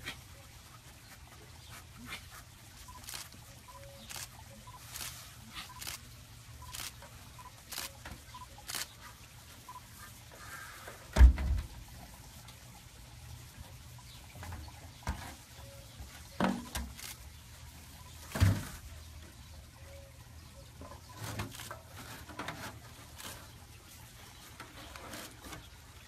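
A large empty plastic water jug knocking and thumping as a giant anteater noses into it and pushes it over, with scattered light clicks and a few heavier hollow thumps, the loudest about eleven seconds in.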